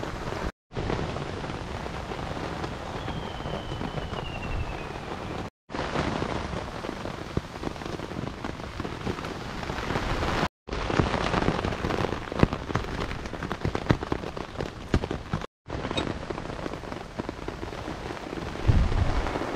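Steady rain pattering, with scattered sharp ticks, heard in several short stretches cut apart by four brief silent gaps. A louder low rumble comes near the end.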